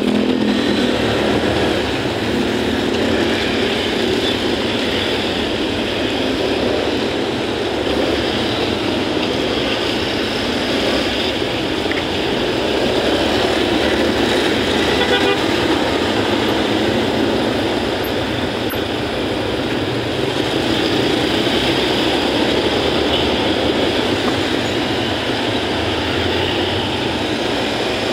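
Steady traffic noise heard from a motorcycle riding in congested stop-and-go traffic: the bike's engine and the surrounding cars and motorbikes, with no single event standing out.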